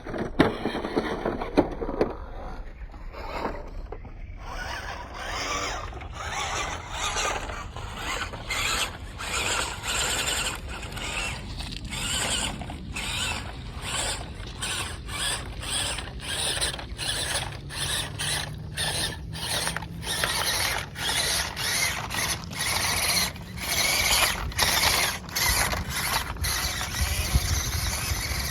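The electric motor and gear drive of a 1/16 WPL C24 Toyota Hilux RC crawler whirring and squealing in short throttle bursts, swelling and dropping about once a second.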